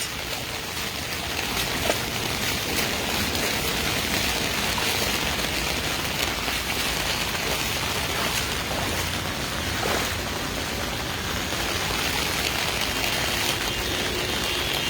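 Steady rain falling on a flooded street, a continuous even hiss of rain and water.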